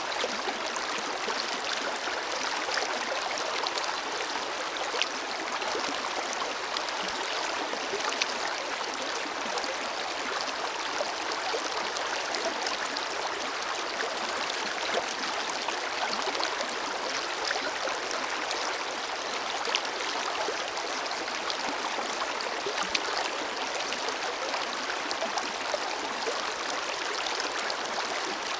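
Forest river flowing steadily over stones: a continuous rushing of water with small splashes and gurgles scattered through it.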